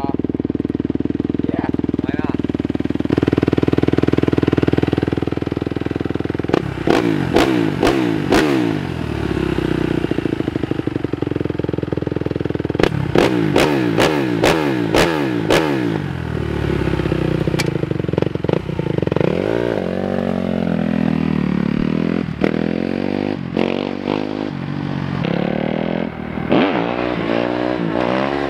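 2017 Kawasaki KX250F dirt bike's single-cylinder four-stroke engine idling, then blipped with quick throttle revs in two bursts. About halfway through, the bike pulls away and accelerates up the road, its pitch climbing and dropping through the gear changes.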